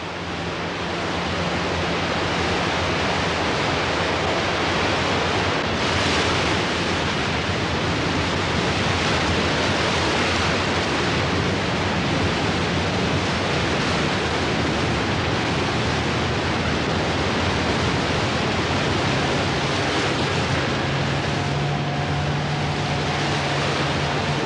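A powerful waterfall and the churning white-water rapids at its base, a loud, steady rush of water.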